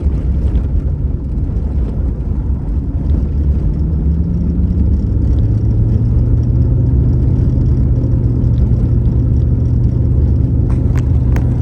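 1985 Corvette's V8 engine and drivetrain running as the car drives, a steady low drone whose pitch climbs about halfway through and then holds.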